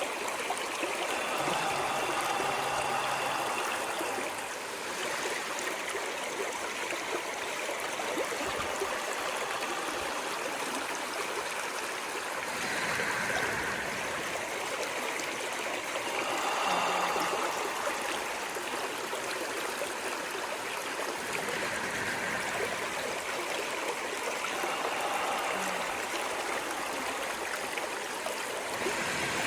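Stream of running water flowing steadily, a continuous rush whose splashier patches swell and ease every few seconds.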